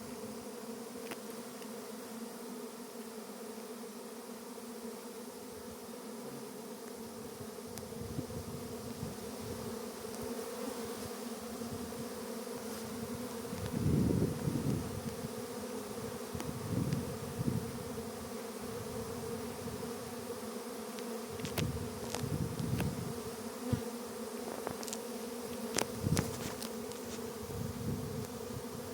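A bee buzzing in a steady, even drone. Several short low rumbles come and go over it, the loudest about halfway through.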